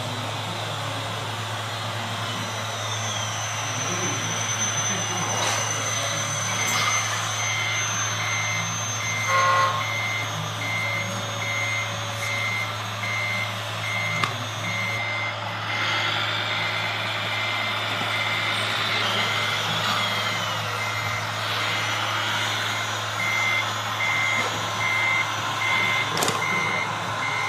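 Reversing beeper on a radio-controlled model truck, evenly spaced beeps at one pitch, about two a second, starting about six seconds in. Underneath are a steady low hum and rising and falling whines from the model machinery's motors.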